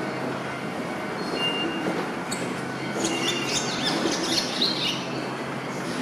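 Male barn swallow singing from a perch: a rapid twittering warble of chirps and trills, with a couple of brief notes early on and a dense run about three to five seconds in, over a steady rumble of train and station noise.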